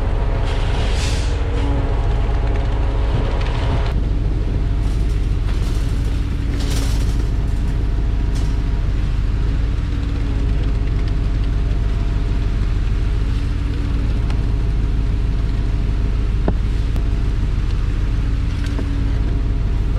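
Concrete truck's diesel engine running steadily at constant revs, a continuous low rumble with a steady hum.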